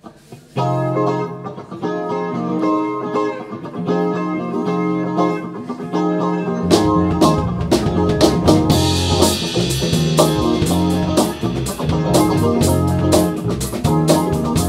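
Live band music: an electric guitar plays a riff alone, then the drum kit and bass guitar come in about seven seconds in and the band plays on together with a steady beat.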